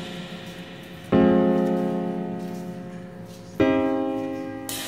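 Slow piano music: chords struck twice, about a second in and again about three and a half seconds in, each left to ring and fade.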